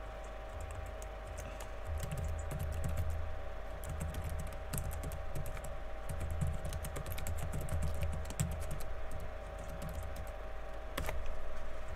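Typing on a computer keyboard: a steady stream of irregular key clicks with soft low thuds, over a faint steady hum.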